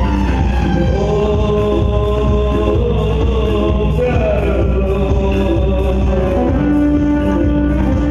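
Live band music: singing over keyboard, with congas, tabla and drum kit keeping a steady beat.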